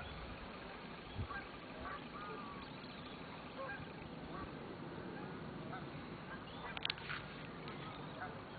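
Distant waterfowl calling now and then over a steady outdoor hiss, with a brief louder sound about seven seconds in.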